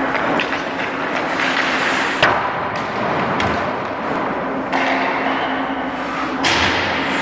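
Ice-hockey skates scraping and carving on rink ice, with sharp knocks of stick and puck, the loudest a little over two seconds in. A steady low hum runs underneath.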